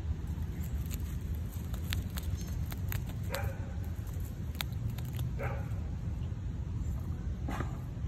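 A dog barking three times in the distance, short barks about two seconds apart, over a steady low rumble. Small sharp clicks run between them as a grey squirrel gnaws peanuts.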